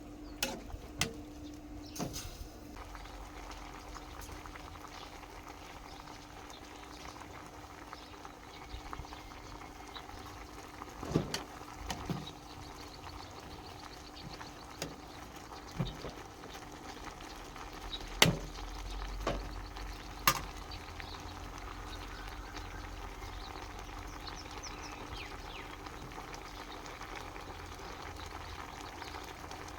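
A pot of food boiling with a steady bubbling hiss, with scattered sharp clicks and knocks, the loudest about 18 and 20 seconds in.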